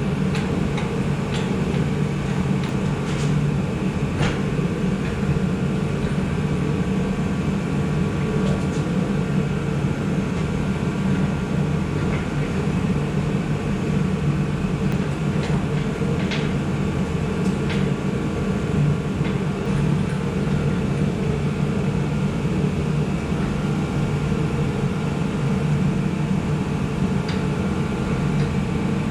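Steady mechanical drone with a few light clicks scattered through it.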